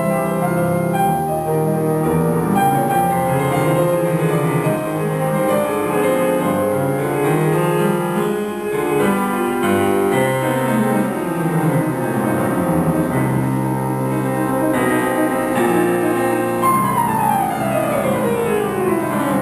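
Solo piano playing a classical piece, with a fast run of notes falling from high to low near the end.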